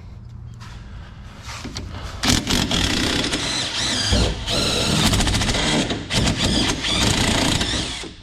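Power tool, most like an impact wrench, running in loud bursts of rapid hammering with a wavering whine, starting about two seconds in and pausing briefly twice, as fasteners are loosened to take the rear coilovers off.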